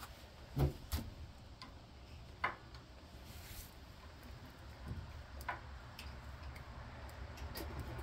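Socket ratchet clicking in a few separate, unevenly spaced clicks as it is fitted and worked on a bolt, the loudest about two and a half seconds in.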